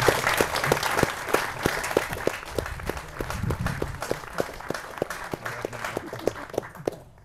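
Audience applauding, thinning out to a few scattered claps and stopping near the end.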